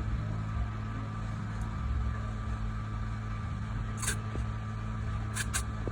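Hot air rework station blowing steadily while heating a phone board to melt solder, a constant hum from its blower, with a few light clicks about four seconds in and twice near the end.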